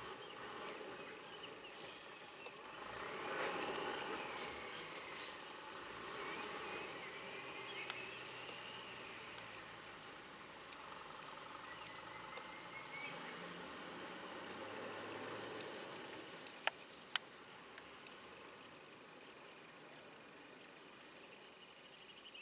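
An insect chirping in a steady rhythm of short, high-pitched pulses, about three a second, over faint background sounds.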